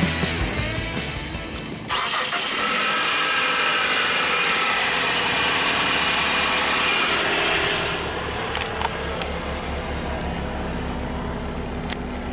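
Background music fading out, then the PT Cruiser's stock 2.4-litre four-cylinder engine starts about two seconds in and idles steadily, heard under the open hood. Near the end it is heard at the tailpipe as a quieter, low, even exhaust pulse at idle.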